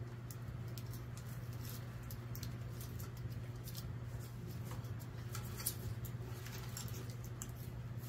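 Faint rustling and light clicks of plastic-insulated wires and connectors being handled as a wire is pulled out through an engine wiring harness, over a steady low hum.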